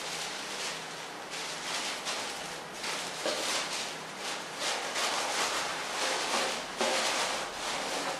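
Tissue paper rustling and crinkling as sheets are pulled from a stack and tucked into a packaging box, swelling and fading unevenly as it is handled.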